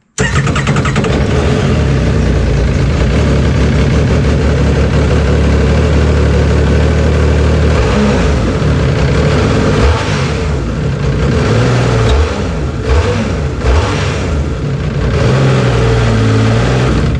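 Yamaha WaveRunner engine with a newly fitted Riva aftermarket air intake, started up and run for a test. It runs steadily for several seconds, then is blipped repeatedly, the pitch rising and falling, and it stops at the end. Its intake sounds a little meaner.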